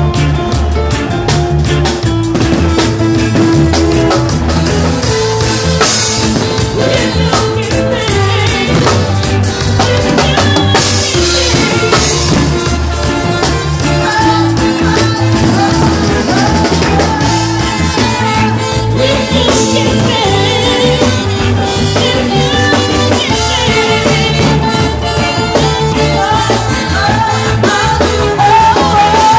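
A live band playing loud Latin dance music, with a steady drum and bass beat, held melodic lines and some singing.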